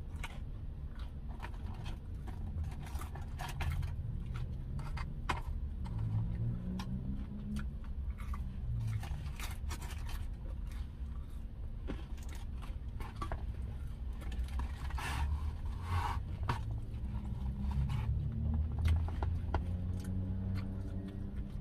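Close-up eating sounds of someone chewing smoked barbecue chicken wings, with scattered sharp clicks and scraping as the foil-lined foam takeout box and food are handled. Short low hums come about six seconds in and again near the end.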